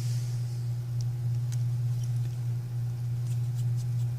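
A steady low hum, with a few faint, scattered light ticks of a small screwdriver working the screws of an iPhone 5c.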